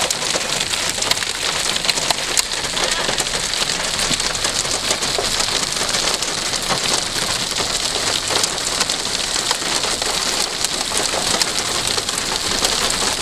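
Steady rain with many individual drops pattering close by, a dense even hiss that stays level throughout.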